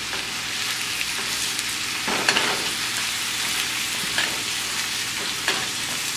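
Ground beef and chopped onion sizzling steadily in a pan over lowered heat, with three short scrapes of a stirring utensil, about two seconds in, near the middle and near the end.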